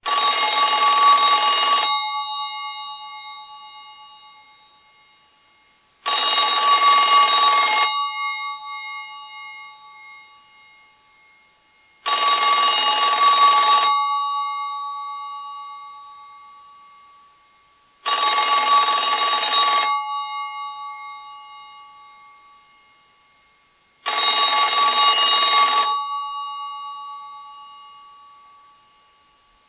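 1950 rotary telephone's bell ringing: five rings about six seconds apart, each a rattling ring of about two seconds whose tone rings on and dies away before the next.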